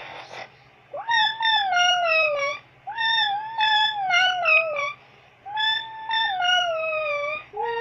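Electronic voice-effect toy sounding three long, wavering howl-like tones, each sliding down in pitch, after a brief hiss at the start.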